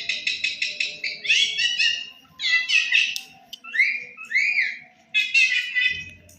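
Parrot calling: about five shrill bursts, some as rapid chattering pulse trains and some as rising-and-falling whistles.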